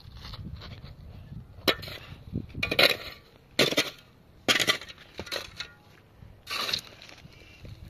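A series of sharp knocks and clatters: about five irregular strikes, each with a brief rattle, roughly a second apart.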